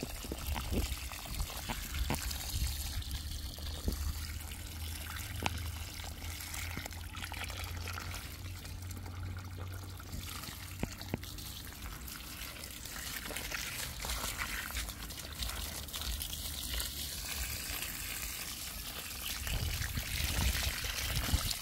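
Water running steadily from a garden hose, pouring and trickling onto waterlogged soil and into puddles.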